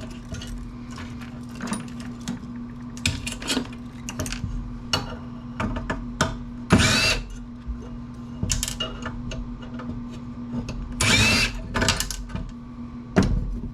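Power drill running in short bursts as screws are driven out of an amplifier's metal chassis, each burst rising in pitch as it spins up, the longest about 7 and 11 seconds in. Between the bursts come clicks and knocks of metal parts being handled, over a steady low hum.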